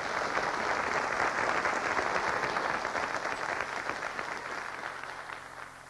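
Studio audience applauding at the close of a radio show. The clapping holds for a couple of seconds, then dies away.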